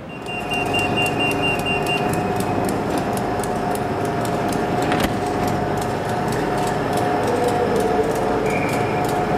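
Class 91 electric locomotive standing at the platform with its pantograph raised, its onboard equipment and cooling fans running with a steady hum and whine. A single sharp click comes about halfway through.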